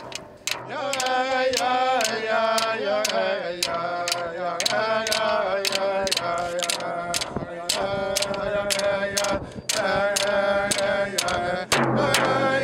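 Inuvialuit drum song: a group chanting together over large round frame drums beaten with thin sticks, about two sharp beats a second.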